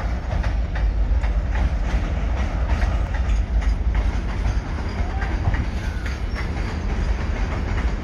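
Departing express train's passenger coaches rolling past and away, wheels clattering over rail joints above a steady low rumble.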